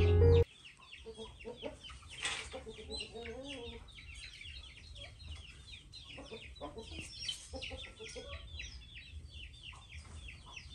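Background music cuts off about half a second in, leaving chickens: a dense run of high peeping calls throughout, with a few lower clucks among them.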